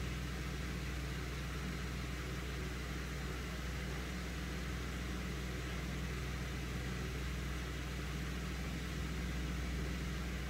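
A steady, even low hum with faint hiss, unchanging throughout.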